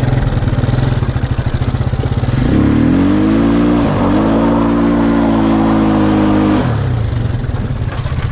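Go-kart's 350cc Yamaha engine pulsing at low revs, then revving up about two seconds in. It holds a steady higher pitch with a short dip partway, then drops back to low revs near the end, as the kart turns donuts.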